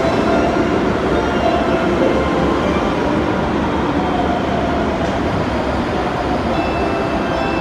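Ainokaze Toyama Railway 521 series electric multiple unit running past along the platform: a steady rumble of wheels and traction equipment, with a few faint steady tones over it.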